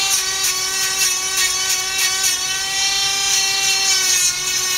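Handheld electric nail grinder running with a steady high whine while filing a Labrador's toenails. Repeated short scratchy bursts come each time the spinning head touches the nail, and the whine sags slightly about four seconds in as it is pressed on.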